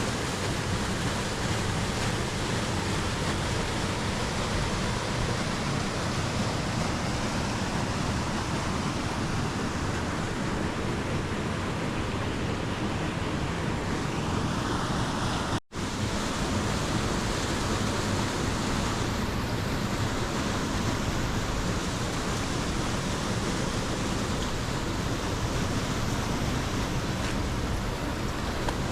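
Waterfall rushing, a steady dense roar of falling water. It cuts out for an instant about halfway through.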